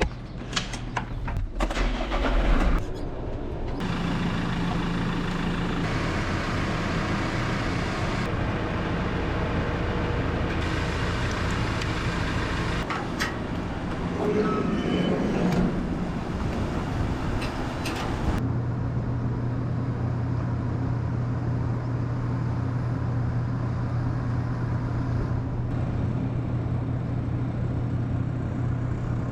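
An engine running steadily, with a few knocks and clatters in the first three seconds; about eighteen seconds in, the sound changes to a steadier low hum.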